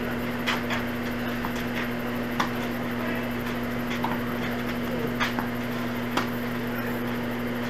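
Tennis rally: short, sharp racket strikes and ball bounces at irregular intervals, the loudest about two and a half seconds in, over a steady low hum.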